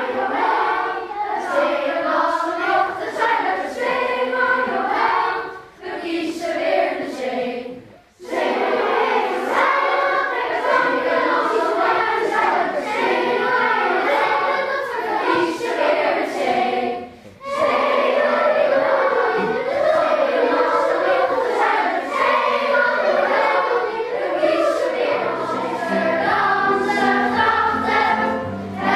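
A large children's choir singing, in phrases with short breaks about 8 and 17 seconds in.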